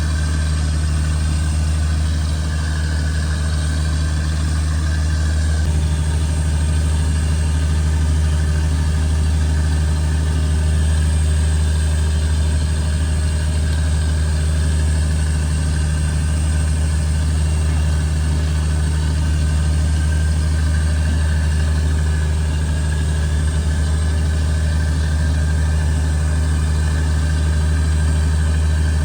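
Fishing boat's engine running steadily at a constant, unchanging pitch.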